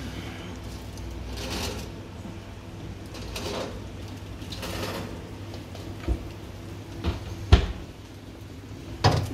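Metal pizza tray pulled out of a fan-forced oven, scraping along the oven rack, then several knocks with one loud clunk near the end as it is handled and set down. A steady low hum from the oven fan runs underneath.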